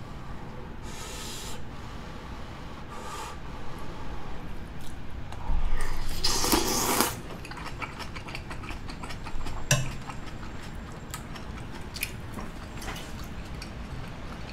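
Mouth sounds of someone eating creamy fusilli pasta with cabbage and bacon, with a louder noisy mouth sound about six seconds in. A few sharp clicks of metal cutlery against the plate follow in the second half.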